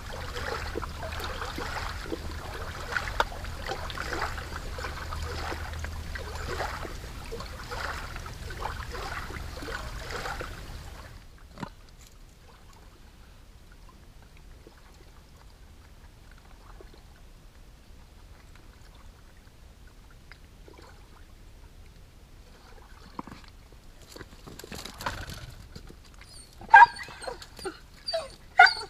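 A dog whining and giving a few short, sharp yelps near the end. Before that, a steady noise for about the first eleven seconds, then near quiet.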